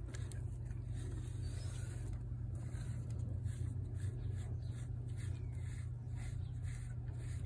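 Rubber grooming brush stroking through a cat's fur: a soft rasping rub, stroke after stroke, over a steady low rumble.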